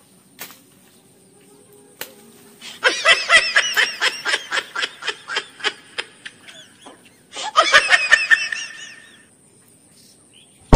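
Laughter in two bouts of quick ha-ha pulses, about four a second: the first lasts nearly four seconds, the second, shorter, comes about a second and a half later.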